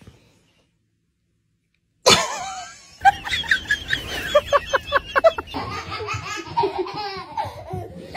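Near silence, then about two seconds in a sudden loud start and a person laughing, with a run of quick bursts in the middle.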